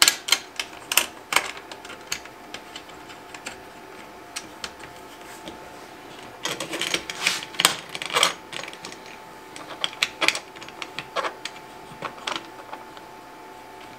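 Irregular clicks, taps and rattles of the circular saw's base plate and the track saw guide plate's clamps as they are fitted and secured by hand, in clusters with short pauses between.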